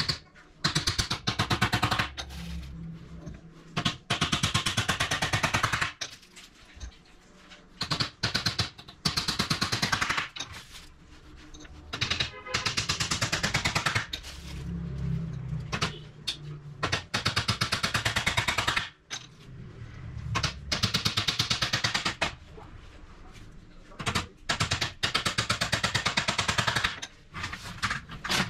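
A hand-held power tool run in repeated bursts of one to three seconds, each burst a fast rattle of strikes, with short pauses between.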